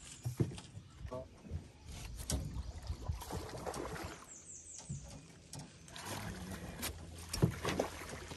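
Irregular knocks and bumps against a fishing boat, with water sloshing, as a hooked striped bass is worked in to the boat; the sharpest knock comes about seven and a half seconds in.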